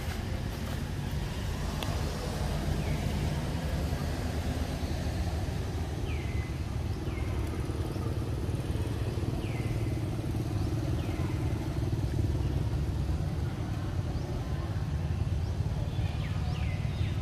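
Steady low outdoor rumble, with short, high, falling chirps several times.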